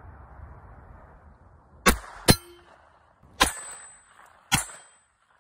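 Pistol shots fired at steel plate targets. Two come in quick succession about two seconds in, then single shots follow about a second apart, each followed by the clang and ring of the struck steel plate.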